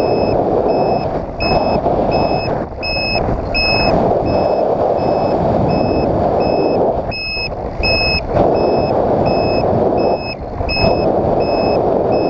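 Wind rushing over the camera of a Bixler 3 RC plane in flight, with a dip now and then. Through it, an onboard electronic beeper gives a short high-pitched beep about twice a second.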